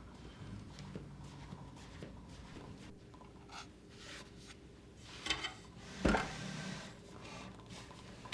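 Light household handling sounds: soft rubbing and scratching with a few small taps, and a louder brushing rustle about five to six seconds in.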